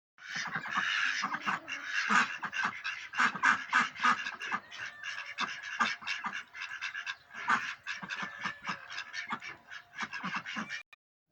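Domestic ducks quacking, many rapid overlapping calls one after another; they start suddenly and stop suddenly shortly before the end.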